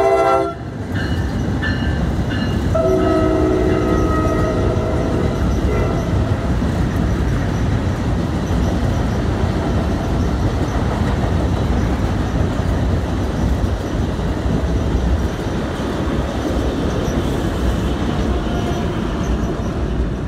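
NJ Transit electric push-pull train with Multilevel coaches crossing a steel trestle bridge. A loud horn blast cuts off just after the start and a second horn sounds for about two seconds around three seconds in, then the steady rumble of the train's wheels on the bridge runs on as the cars pass.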